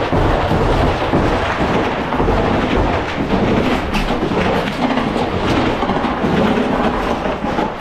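Loud, continuous rumbling noise on a soldier's helmet camera during combat, with a few sharp cracks scattered through it.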